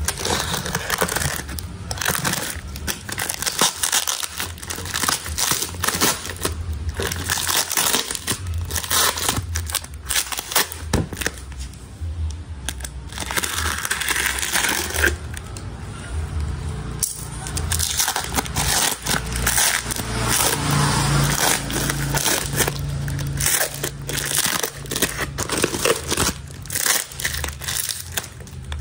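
Thick plastic wrapping and packing tape being slit with a box cutter and torn open by hand: irregular crinkling, scraping and ripping.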